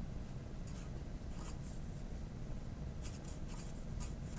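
Marker writing on paper: short scratchy strokes in a few bursts, over a low steady hum.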